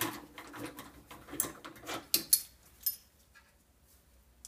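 Metal hand tools and engine parts clinking and knocking as they are handled, in irregular single strikes, several with a short metallic ring, dying away about three seconds in.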